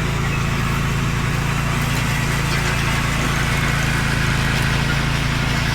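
An engine running steadily at an even speed with a low, constant drone.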